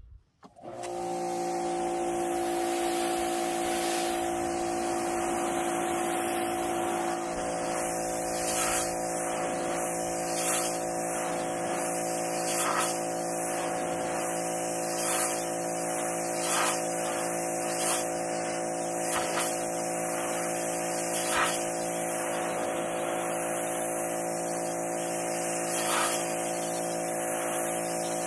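Pressure washer running steadily, its motor hum under the hiss of the water jet spraying the old bus's roof.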